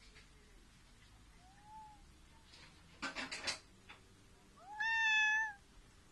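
Domestic cat giving one short meow near the end, about a second long, rising at the start and then held level, after a faint short mew earlier and a brief patch of rustling in between; a drowsy cat's protest at being disturbed while sleeping.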